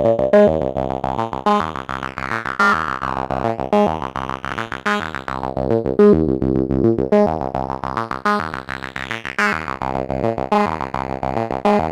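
Plankton Electronics Ants! synthesizer playing a quick rhythmic sequence of short notes through the SPICE distortion and saturation unit, which gives the notes a driven, gritty tone. The brightness of the tone sweeps down around two to three seconds in and up again around nine to ten seconds.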